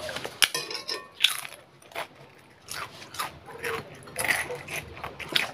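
Crisp papad being bitten and chewed close to the microphone: a string of sharp, irregular crunches, with a short lull about two seconds in.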